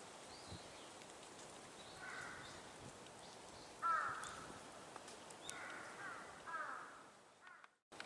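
White-cheeked starlings giving a series of short, harsh calls, the loudest about four seconds in.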